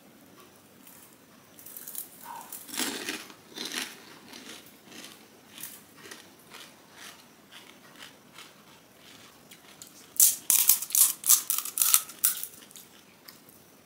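Crisp, hollow pani puri shell bitten and chewed: a cluster of crunches about two to four seconds in, then softer chewing. From about ten seconds in, a louder run of sharp crackles as the next puri's shell is cracked open with the fingers.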